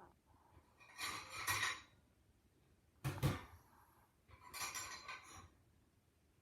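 A Maltese dog snoring in deep sleep: three noisy snoring breaths, one about every one and a half seconds, with quiet between.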